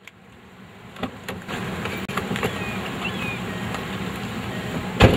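A Volkswagen New Beetle's engine running steadily as the car pulls up, fading in at the start. There are a few light clicks and a loud thump near the end.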